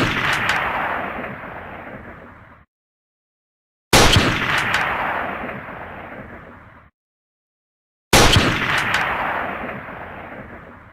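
M24 bolt-action sniper rifle gunshot sound effect, fired three times: once right at the start, again about four seconds in and again about eight seconds in. Each shot is a sharp crack followed by a long rolling echo that fades over about three seconds, with dead silence between shots.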